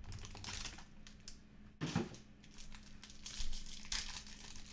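Clear plastic wrapping on a trading card box crinkling and tearing as it is pulled off by hand, with one sharp knock about two seconds in.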